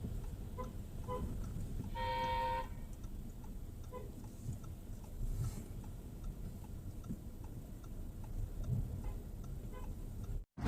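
A car horn sounds once for under a second about two seconds in, with a few very short toots at the same pitch before and after. A low, steady traffic rumble runs underneath.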